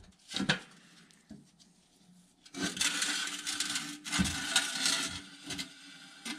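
Cast-metal dasher with wooden scraper blades being dragged out of the rusty metal canister of a hand-crank ice cream maker: wood and metal scrape and rattle against the rusty can walls for about three seconds. A single sharp knock comes about half a second in.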